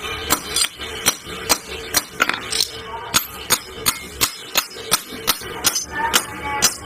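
Hand hammer striking a steel scissor blade on an anvil block, sharp metallic blows about three a second, with background music underneath.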